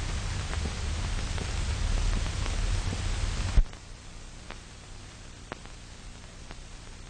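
Surface hiss and crackle of an old optical film soundtrack with no narration, ending in a sharp pop about three and a half seconds in, after which the hiss drops to a lower level with scattered faint clicks.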